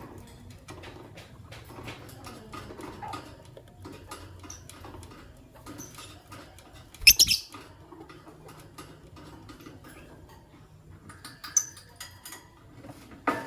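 Fischer's lovebirds, an albino and a pastel green, in their cage: a continual patter of small clicks and scratches, with one loud, shrill call about seven seconds in and shorter sharp calls near the end.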